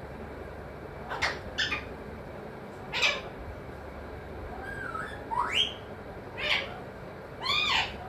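Alexandrine parakeet calling: a run of short, sharp calls, with a couple of whistled gliding notes in the middle and a longer arched call near the end.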